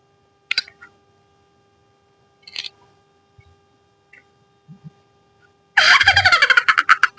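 Sound-effect clips previewed in a phone video-editing app: two short blips, then about six seconds in a loud clip with a rapid pulsing pattern and a wavering pitch.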